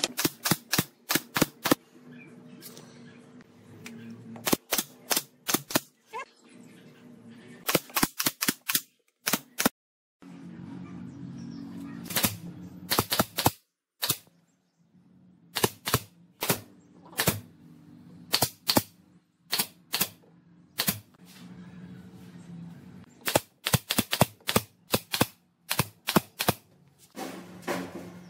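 Sharp clicks and knocks in quick clusters, several a second, from tools driving fasteners into wood, with brief pauses between clusters. A steady low hum runs underneath, and the sound cuts out abruptly a few times.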